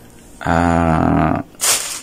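A man's voice holding a drawn-out hesitation sound, 'ehh', on one steady low pitch for about a second, followed near the end by a short hiss.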